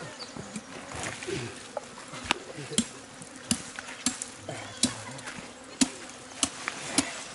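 Flies buzzing around a freshly skinned deer carcass, with sharp clicks now and then, roughly every half second to second.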